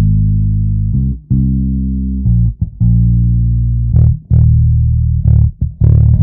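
Outro music led by a bass guitar: low plucked notes held and changed about every second, with guitar over them.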